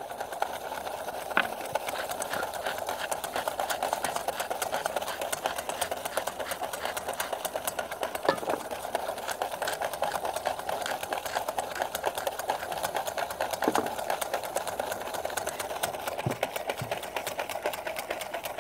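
Wire balloon whisk beating mayonnaise by hand in a stainless steel bowl, its wires scraping and clicking against the metal in a rapid, steady rhythm. The egg yolk and mustard are being emulsified while oil is added in a thin stream.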